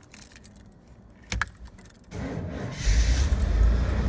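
Clicks of the ignition key, then the 1990 Chevy Suburban's V8 cranks briefly and catches about three seconds in, settling into a steady low-pitched run.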